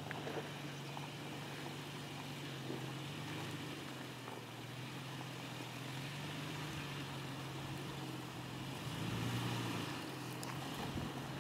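Toyota Tacoma pickup's engine running at low revs as the truck crawls over rocks, its pitch rising briefly about nine seconds in.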